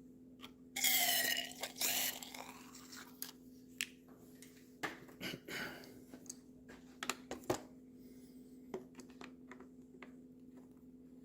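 Pressure washer parts being handled and worked: a short wavering squeak about a second in, then scattered clicks and knocks, over a steady low hum.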